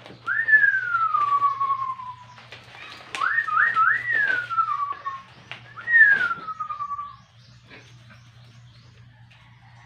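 Three whistled phrases: a quick rise in pitch followed by a long slow slide down, then a quick run of up-and-down notes sliding down, then another rise and slow fall, with a few faint clicks between them. The last phrase ends about seven seconds in.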